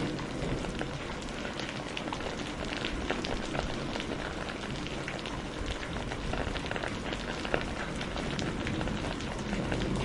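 Heavy rain falling steadily: a dense, even hiss with many separate drops pattering and splashing on surfaces.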